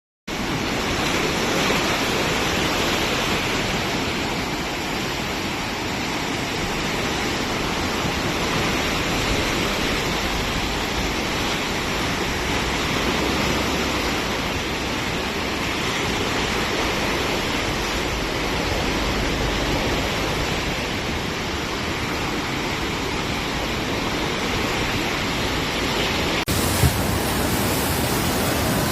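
Floodwater rushing through the open gates of the Kosi barrage, a steady, heavy water noise. Near the end the sound changes abruptly, with a single click.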